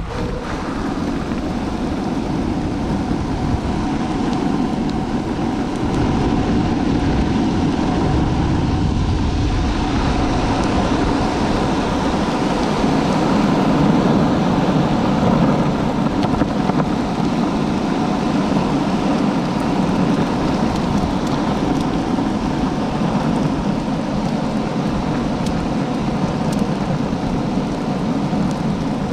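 Longboard wheels rolling over pavement: a loud, steady low rumble that swells slightly over the first few seconds.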